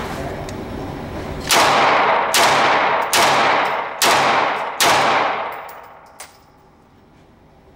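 Walther PPQ 5-inch pistol firing five shots at a steady pace, about one every 0.8 seconds, each report ringing out in the reverberant indoor range.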